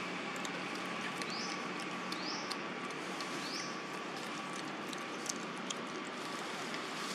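Steady outdoor woodland ambience, a constant hiss with a faint steady hum. Three short rising chirps come about a second apart in the first half, along with scattered small clicks.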